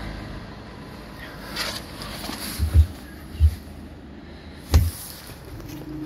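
Steady outdoor background rumble broken by three dull, loud low thumps in the second half, the last with a sharp click.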